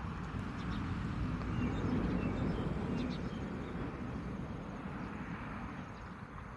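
Outdoor ambience: a low rumble that swells to a peak about two seconds in and then fades, with a few faint bird chirps.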